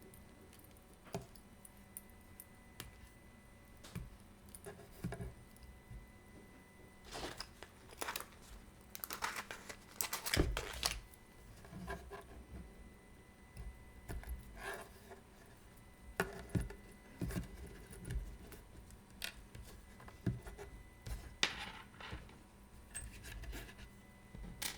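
Small tools and watch parts being handled at a watchmaker's bench: scattered light clicks and taps, with short scraping, rustling stretches, the busiest about a third of the way in.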